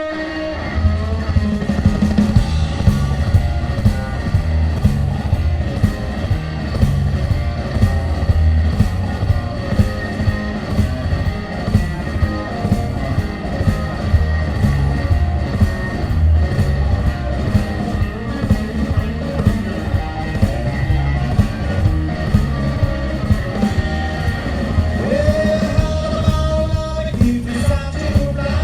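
Live blues band playing, electric guitar over bass and drums with a steady beat.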